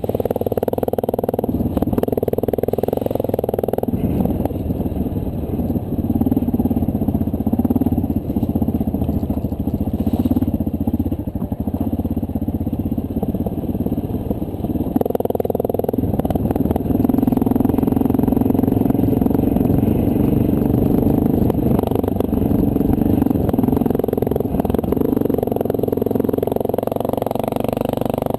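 Honda CRF230L dual-sport motorcycle's air-cooled single-cylinder four-stroke engine running under way, heard close from on the bike. The engine speed changes several times, at about two, four and fifteen seconds in, as the rider works the throttle and gears.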